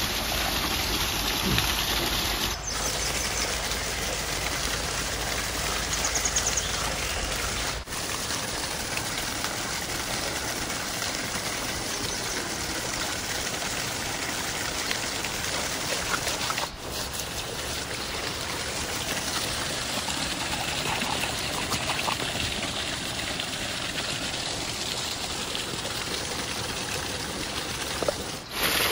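Steady rushing noise of running water, broken by a few abrupt cuts.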